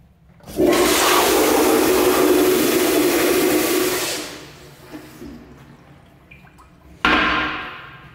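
Kohler Kingston commercial toilet flushed by its flushometer valve: a sudden, loud rush of water that holds for about four seconds and then trails off. A second loud rush of water starts suddenly about seven seconds in and dies away within a second.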